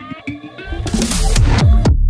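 Electronic dance music: a rising noise sweep builds up, then heavy kick drums that drop in pitch come in about a second and a half in.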